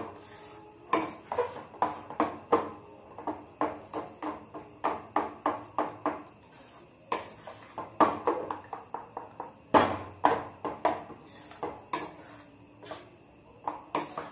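Metal spoon beating cream and cold water in a stainless steel bowl, clicking and knocking against the bowl about two to three times a second with a light ring, pausing briefly twice. The cream is being churned into butter, which is separating from the water.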